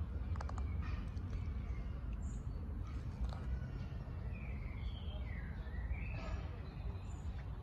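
Steady low rumble of outdoor background noise, with a few short, high, gliding chirps from about four to six and a half seconds in.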